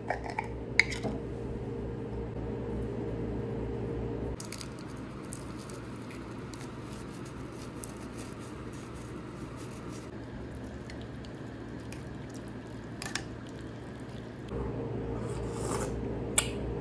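Faint crackling of dried chiltepín chiles being crushed between fingertips, a few sharp crackles in the first second and lighter crumbly ticks after, over a steady low hum.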